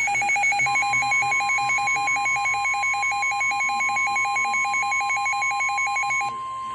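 Emergency Alert System attention signal for a severe thunderstorm warning: a fast warbling two-pitch alert tone, joined about a second in by a steady single-pitch weather radio alert tone. The warble cuts off near the end while the steady tone carries on.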